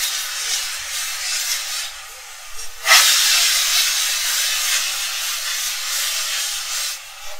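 Grated potato pancake sizzling in hot oil in a frying pan, a steady hiss. About three seconds in there is a short knock as the pancake is turned over, and the sizzling is louder after it.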